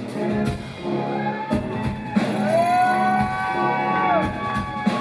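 A rock band playing live: drums and bass, with a long held note that slides up about two seconds in and drops away shortly before the end.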